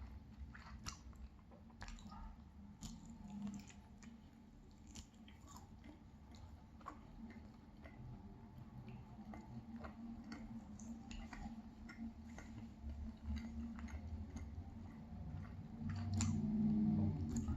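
Close-up chewing of a pan-fried cheese pancake, with scattered short mouth clicks. It grows louder near the end.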